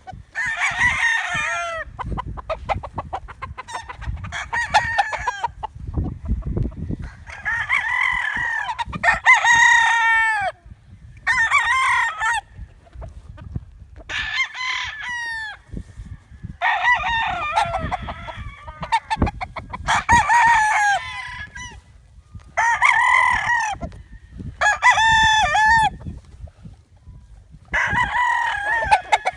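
Roosters crowing again and again, one long call after another every couple of seconds, with chickens clucking and short sharp clicks between the crows.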